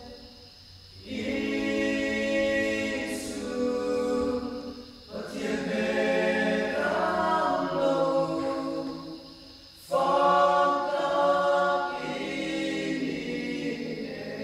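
Male a cappella group of five voices singing a worship song in harmony, in phrases a few seconds long with brief pauses between them.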